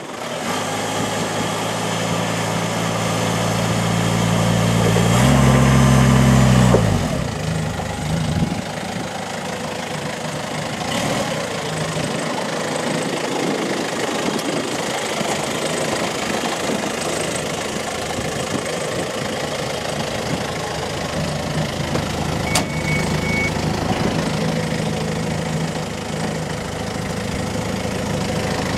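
Diesel engine of a Toyota 8FDJF35 3.5-tonne forklift idling steadily. About five seconds in it revs up for roughly two seconds, then drops back to idle.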